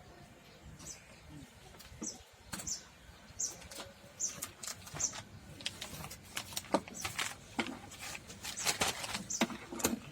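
A bird chirping over and over, each chirp short, high and falling in pitch, a little under a second apart. Close clicks and knocks of something being handled get busier and louder through the second half.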